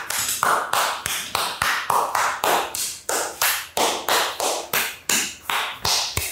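A rapid, even series of sharp taps, about four a second, each with a short noisy decay.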